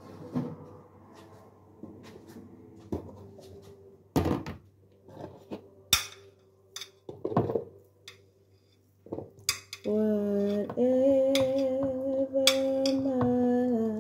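A metal spoon clinking and scraping against a glass baking dish in scattered sharp knocks while food is scooped out. From about ten seconds in, a woman hums a tune in long held notes over it.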